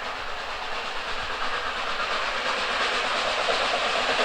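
Steam locomotive working on the line: a rushing, hissing exhaust that grows steadily louder, with a rhythmic beat coming through in the second half.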